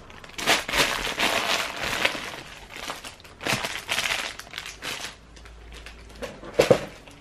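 Clear plastic bag crinkling in bursts as it is handled, with a couple of sharper, louder clicks near the end.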